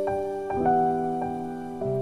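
Gentle background music of keyboard notes, struck one after another about every half second and left ringing.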